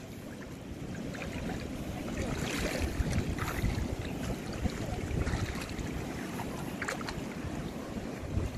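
Wind buffeting the microphone over shallow water, with water sloshing and splashing; it gets louder about two seconds in.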